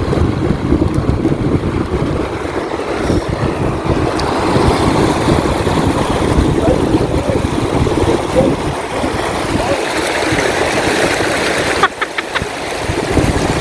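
River water rushing over rocks, with wind buffeting the microphone in a steady low rumble. A few sharp clicks near the end.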